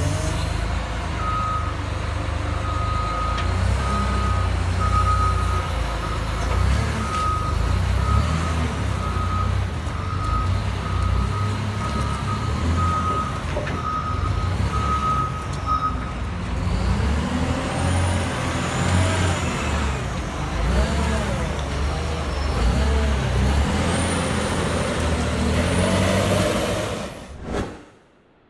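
Cat 966K wheel loader's C13 diesel engine running as the machine drives and manoeuvres, with its reversing alarm beeping about once a second for the first half. After that the engine pitch rises and falls as it moves, and the sound cuts away near the end.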